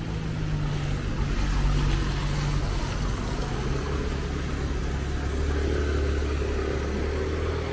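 A motor vehicle's engine running close by, its low hum dropping to a deeper note about halfway through, over a steady hiss of rain.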